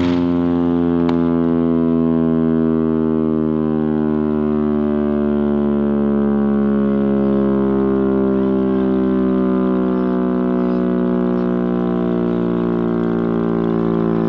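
Chrysler air raid siren, driven by a Hemi V8 engine, sounding one loud, sustained low tone whose pitch falls slowly.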